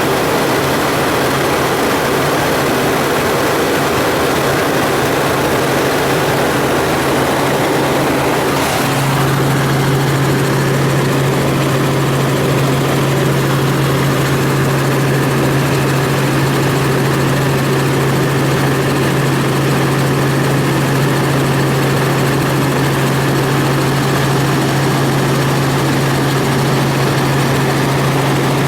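Helicopter in flight heard from inside the cabin: a loud, steady rotor and turbine drone with a low hum that grows stronger about nine seconds in.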